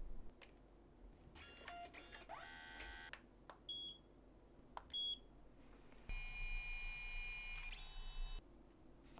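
Small electronic device: a few rising electronic tones, then two short high beeps, then a steady motor whine for about two seconds that stops abruptly.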